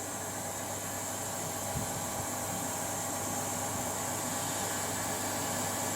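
Membrane pure-water treatment machine running while it produces water: a steady hum with an even hiss, unchanging throughout.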